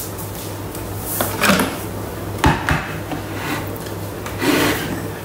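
A handful of short clunks and scrapes as the stainless-steel Thermomix mixing bowl is lifted off its base and handled along with the spatula, over a steady low hum.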